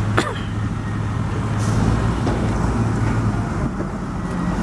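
Engine of a loaded Suzuki Carry pickup running steadily at low revs as it moves slowly, with a short hiss about one and a half seconds in.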